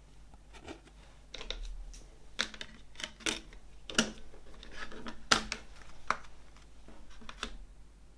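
CD packaging being handled: a string of sharp clicks and taps, about a dozen spread over several seconds, with light rustling between them.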